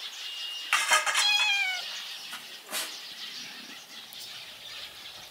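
Domestic cat meowing once, a call of about a second that falls in pitch toward its end.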